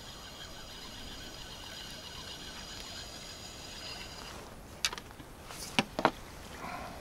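Fishing reel being wound in with a steady whine while a hooked bream is brought in; the winding stops about four seconds in. Then come a few sharp clicks and knocks, with some water sloshing.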